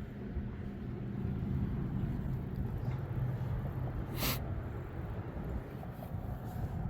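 Vehicle engine and road noise as a steady low rumble with a hum, heard inside a van on the move. About four seconds in there is a brief hiss.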